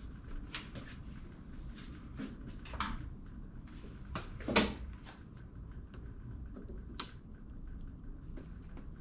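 Scattered light knocks and clicks of something being handled, with a louder thump about halfway through and a sharp click a couple of seconds later, over a low steady background noise.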